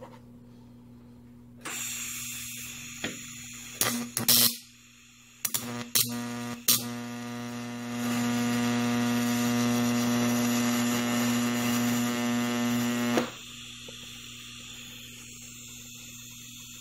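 TIG welding arc on DC electrode positive, melting a ball onto the tungsten electrode. A hiss comes in about two seconds in, a few sharp cracks follow as the arc strikes, then a steady loud electrical buzz runs until it cuts off suddenly about thirteen seconds in when the pedal is released, leaving a softer hiss.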